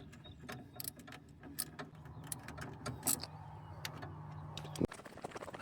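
Scattered metallic clicks and clinks of a socket wrench with an extension being worked at a lawnmower battery's terminal bolts. A steady low hum runs underneath and stops abruptly near the end.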